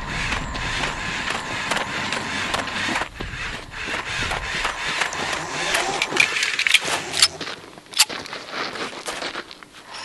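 Mechanical clicking and whirring of a walking bipedal humanoid robot, with its steps on dirt, and a few sharp knocks about two-thirds of the way through.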